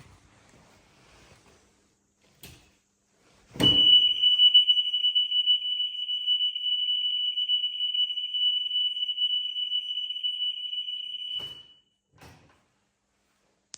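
2025 Linhai 320 ATV's reverse warning buzzer sounding one steady high-pitched tone for about eight seconds. It starts with a clunk and then cuts off, with a couple of faint knocks around it.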